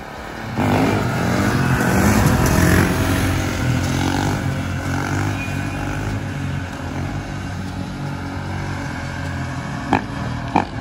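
Kawasaki KX450 dirt bike's single-cylinder four-stroke engine running hard under throttle as it is ridden. It comes in suddenly about half a second in, and its pitch rises and falls with the throttle. A few sharp clicks come near the end.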